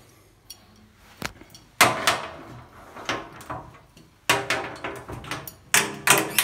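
Sheet-metal lift control cabinet door being unlatched and opened: a click, then sharp metallic clanks with brief ringing, about two seconds in, around four seconds, and twice near the end.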